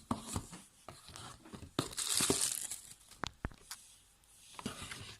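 Packaging being crinkled and torn open by hand, with rustling and a few sharp clicks and taps. There is a louder tearing stretch about two seconds in.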